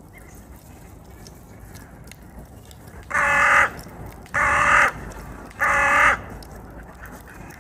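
Hooded crow cawing three times, each caw harsh and about half a second long, evenly spaced about a second apart.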